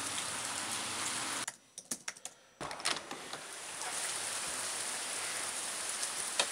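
Steady hiss of rain falling, broken about a second and a half in by a short quieter stretch with a few light clicks.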